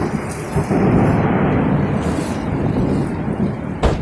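Thunder rumbling over heavy rain, loudest about a second in and slowly easing; a sharp click just before the end.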